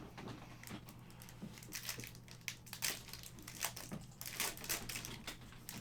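Foil trading-card pack wrapper crinkling and crackling irregularly as it is torn open and handled, loudest in a few clusters through the middle.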